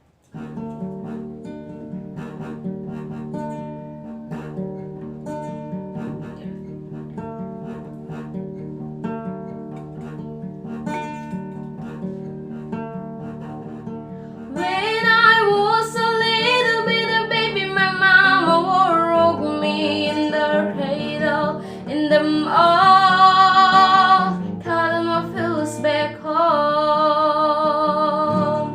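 Acoustic guitar playing a steady chordal introduction, joined about halfway through by a young girl singing over it, her held notes wavering with vibrato.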